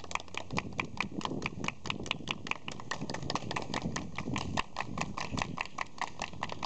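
A fast, even run of sharp percussive taps, about six or seven a second, keeping a steady rhythm.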